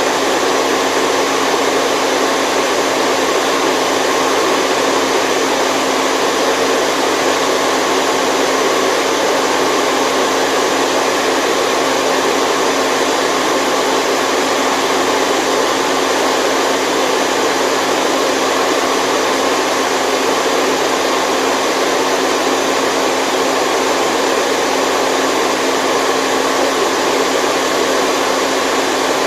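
Steady, unchanging white noise with the deep bass cut away, played as a sleep aid for a baby.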